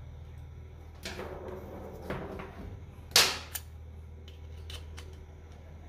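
Sharp knocks and clicks of a metal hand tool being struck and handled, a few separate strikes with the loudest about three seconds in, then a few faint clicks. A steady low hum runs underneath.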